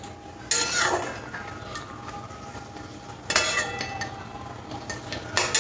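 Flat metal spatula scraping and stirring against the side and bottom of a metal kadai of prawn and coconut-milk gravy, three strokes with a faint metallic ring: about half a second in, a little past three seconds, and near the end.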